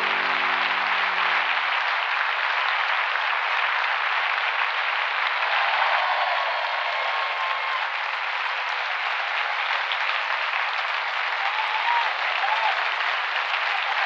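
A large theatre audience applauding, steady dense clapping with a few voices calling out above it. The last notes of a piece of music die away in the first two seconds.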